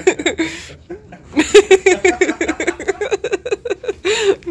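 A person laughing hard in rapid, high-pitched bursts of giggles, with a brief pause about a second in.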